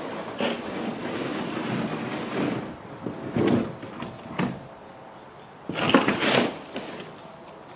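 Large plywood shipping-crate panels being handled: a series of scrapes and knocks as a panel is stood up and laid down on a stack of crate boards, the loudest about six seconds in.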